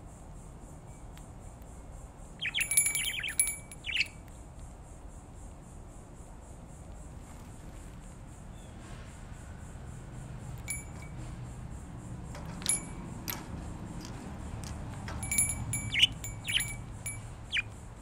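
Budgerigars chirping in two short bursts of quick, high calls, one a couple of seconds in and one near the end, with scattered clicks in between. Some clicks leave a brief ringing tone at a fixed pitch, like a small cage bell being struck.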